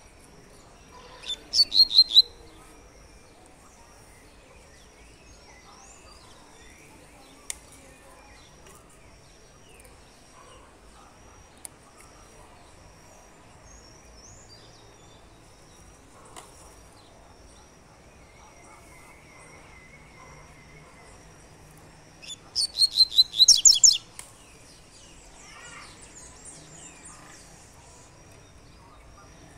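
Caged double-collared seedeater (coleiro) singing its short 'tui-tui' song twice, about twenty seconds apart: each a quick run of high sweeping notes lasting about a second. Faint high chirping continues in the background between the songs.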